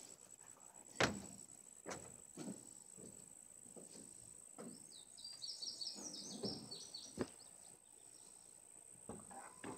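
Knocks and thumps of square hay bales being shifted on a pickup bed and trailer, the sharpest knock about a second in and softer ones after. Birds chirp briefly in the middle, over a steady high-pitched whine.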